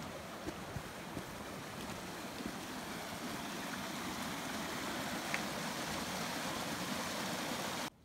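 Glacial meltwater stream rushing over ice and stones: a steady noise of running water that grows a little louder, then cuts off suddenly near the end.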